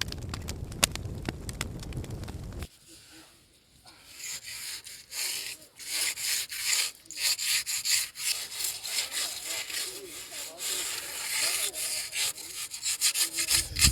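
A low, steady rumble for the first few seconds, then, after an abrupt change, a long run of quick, rough scraping strokes.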